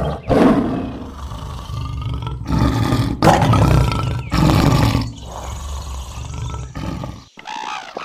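Lioness roaring: a run of loud, deep roars over the first five seconds, softer after that. The sound cuts off suddenly a little after seven seconds in.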